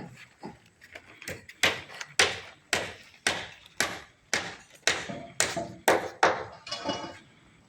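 Hammer blows on the construction site, a steady run of sharp strikes at about two a second, lighter at first and loudest in the middle.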